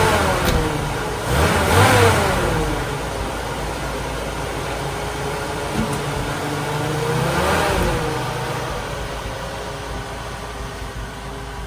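1981 Jeep CJ7 engine running, revved up and back down twice as the Jeep pulls away in reverse, then fading as it moves off.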